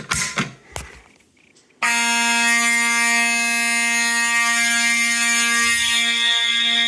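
A few sharp clacks as a BG-12 fire alarm pull station is pulled. About two seconds in, the system's fire alarm horns start sounding continuously with a loud, steady buzzing tone, and a higher shrill tone grows stronger near the end.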